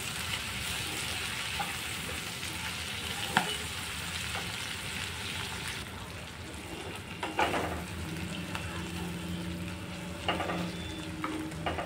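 Chopped onions, capsicum and spring onion greens sizzling in hot oil in a kadai while a wooden spatula stirs them, with a few scrapes and knocks of the spatula against the pan.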